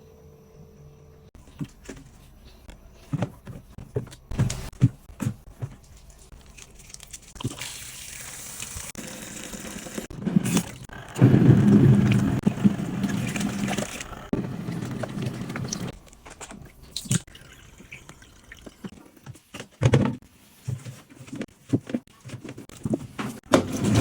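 Water running and splashing into the tub of a portable twin-tub washing machine, loudest in the middle stretch with a low hum under it, amid scattered clicks and knocks from handling the machine.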